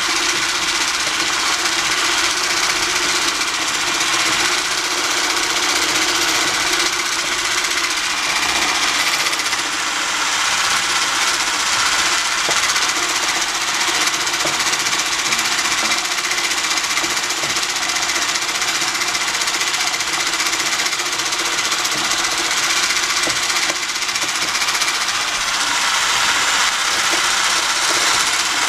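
Electric stick blender motor running steadily, whipping cream in a plastic beaker. The noise holds level without a break.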